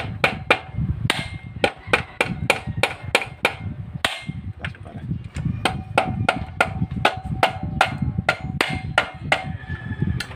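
A mallet knocking repeatedly on a Suzuki Smash 115 engine crankcase, about three sharp blows a second, to break apart the case halves, which are hard to separate.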